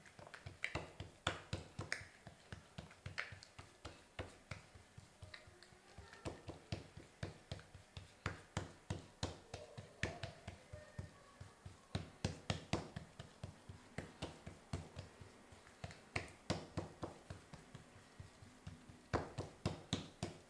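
Hands patting and pressing oiled msemen dough flat on a wooden cutting board: a long run of soft, quick taps and slaps, several a second and uneven in strength, as the dough is spread into a thin round.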